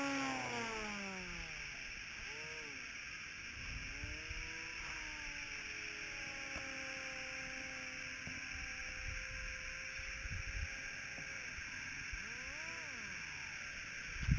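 Whine of an RC delta wing's Turnigy D2826/6 2200kv brushless motor and 6x4 pusher propeller in flight. The pitch slides down at the start, then rises and falls in arcs several times, with steadier stretches in between.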